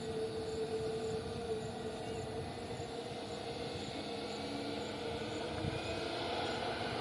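Jet engines of an Airbus A320-family airliner running steadily on the runway, with a held whine. Near the end the whine begins to rise as the engines start to spool up.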